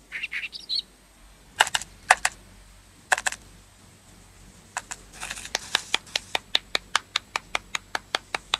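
Cartoon sound effects: a short rising squeaky glide, then a few sharp clicks, then a fast, even run of clicks, about five a second.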